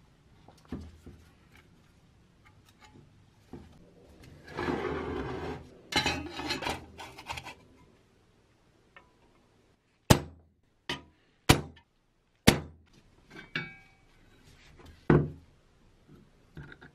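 Hammer blows on the bear trap's steel parts: four sharp knocks in about two and a half seconds, then one more a few seconds later. Before them comes a stretch of scraping and handling noise.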